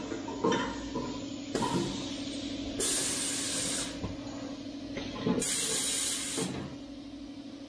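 Wine-bottling machinery giving two hisses of air, each about a second long and roughly two and a half seconds apart, over a steady machine hum, with a few light knocks in the first two seconds.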